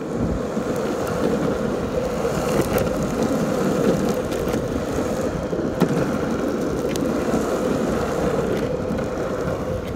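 KOTA longboard's wheels rolling steadily over asphalt, a continuous rumbling roll with a few faint clicks as they cross bumps in the pavement.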